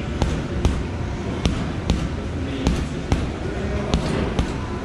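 Boxing gloves punching a leather heavy bag in a rapid combination: a run of sharp thuds, about two a second.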